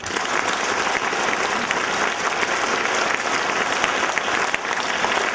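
Audience applause: many hands clapping, starting abruptly and holding steady.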